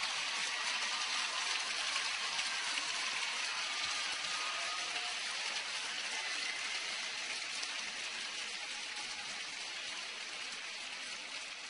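Large crowd applauding and laughing, a long, steady spell of clapping that slowly dies away near the end.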